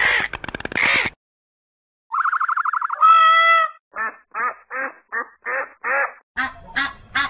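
Recorded bird calls played one after another: a busy call cutting off about a second in, then after a short pause a pitched trilling call and a held call, followed by a run of six evenly spaced duck quacks and a few short calls near the end.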